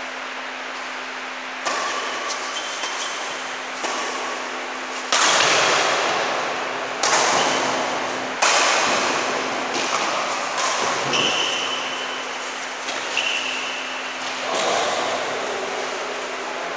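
Badminton rally: rackets striking the shuttlecock about nine times, a sharp crack every one to two seconds with a short echo after each, the hardest hits in the middle. A steady low hum runs underneath.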